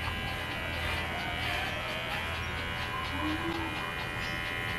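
Cordless electric pet clipper buzzing steadily as it trims a shih tzu's fur.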